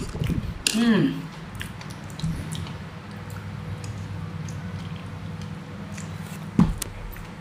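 A person eating soft, mealy dưa gang melon with condensed milk from a spoon: quiet wet chewing and squishing, with a short murmur of the voice about a second in and one sharp click near the end. A steady low hum runs underneath.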